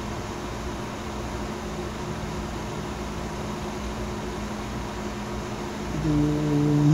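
Steady whir and hiss of the Taramps HD 3000 car amplifier's cooling fan running on the bench, with a faint steady hum under it. About six seconds in, a louder low held tone comes in and continues to the end.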